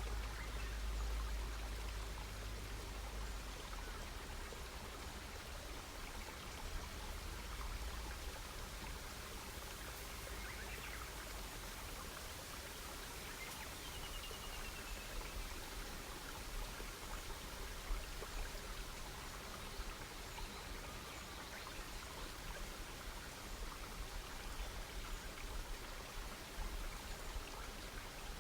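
Wood campfire burning, a steady hiss with scattered small crackles and pops. A bird calls faintly about halfway through.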